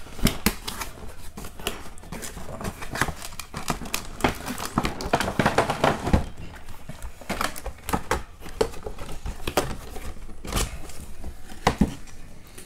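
Hands handling and turning a cardboard toy window box: a run of irregular scrapes, taps and crinkles of cardboard and plastic.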